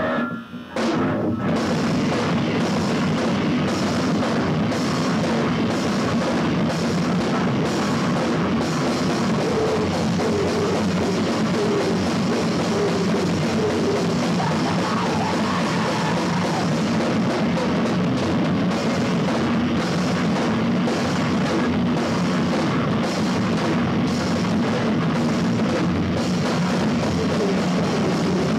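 Live heavy rock band playing loud: heavily distorted electric guitar and a pounding drum kit with cymbals, a dense unbroken wall of noise. It drops out briefly just after the start, then comes back in hard about a second in.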